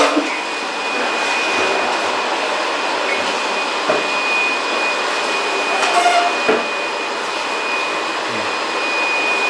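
Steady rushing noise of a running electric machine, with a thin, steady high whine over it. A couple of light knocks come about four and six and a half seconds in.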